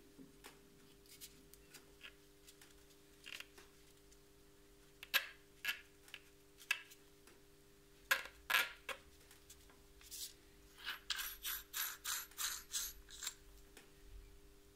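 Handling clicks and knocks from a Metabo WEV 15-150 Quick angle grinder being turned over in the hands. About eleven seconds in comes a quick run of ratchet-like clicks, about four a second for two seconds, as the flange nut is worked off the spindle.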